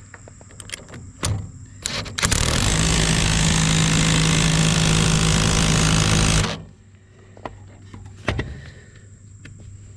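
A power tool runs steadily for about four seconds with a low hum, driving a bolt tight on the mower deck. Metal knocks and clanks come before and after it.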